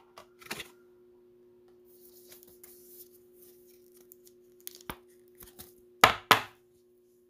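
Hands handling a trading card and plastic card holders on a table: light clicks and a soft plastic rustle, then two sharp knocks about six seconds in, over a faint steady hum.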